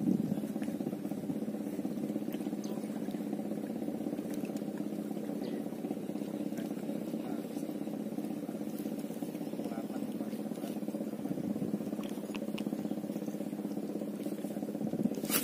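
Steady, even drone of a boat engine running out on the water, holding one pitch throughout. Right at the end a short burst of rushing noise, like wind or handling on the microphone, cuts across it.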